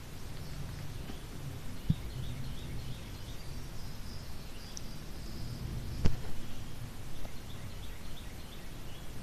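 Outdoor woodland ambience: faint high bird chirps over a steady low rumble of wind and movement on the microphone. A sharp click about two seconds in and a louder one about six seconds in.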